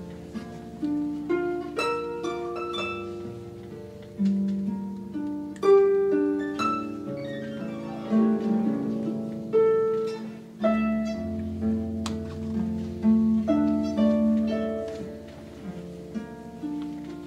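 Solo concert harp playing a slow melodic piece: plucked notes and broken chords that ring on and overlap, with a deep bass note joining about ten seconds in.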